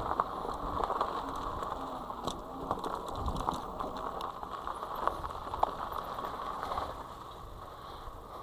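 Himiway Zebra fat-tyre e-bike rolling over a sandy trail: steady crunching and hiss of the tyres on sand and debris, with scattered rattles and clicks from the bike's drivetrain and frame. It eases off a little near the end.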